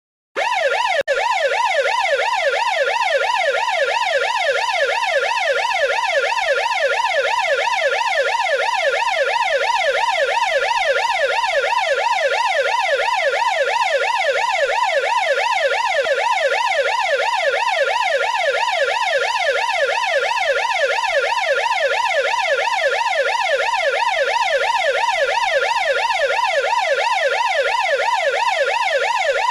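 Police car siren in its fast yelp mode, sweeping rapidly up and down in pitch about three times a second without a break. It starts abruptly just after the beginning.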